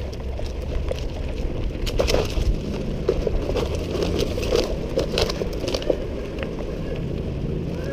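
Mountain bike rolling downhill over a dirt trail covered in dry leaves and bamboo litter: tyres crunching and crackling through the debris, with frequent short clicks and rattles and a steady low rumble underneath.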